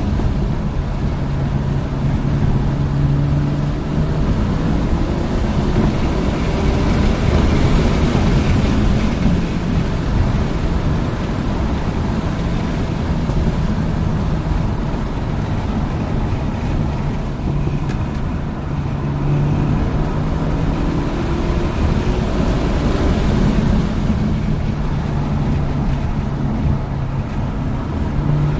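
Hyundai Elantra N's turbocharged four-cylinder engine pulling hard on a race track, its pitch rising and falling several times as the car accelerates and slows for corners, over a steady rush of wind and road noise.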